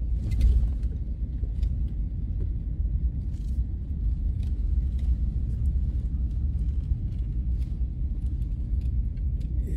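Low, steady rumble of a car or truck driving slowly, heard from inside the cabin: engine and tyres, with a few faint ticks.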